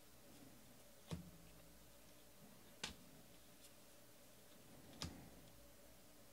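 Stack of Bowman baseball cards being flipped through by hand, one card at a time. Each card gives a short sharp snap, three of them about two seconds apart, with faint ticks between, over near silence.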